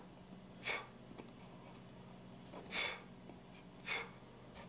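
Chip carving knife slicing and scraping basswood while cleaning up cuts: three short scratchy strokes, about a second in, near the three-second mark and near four seconds, over a faint steady hum.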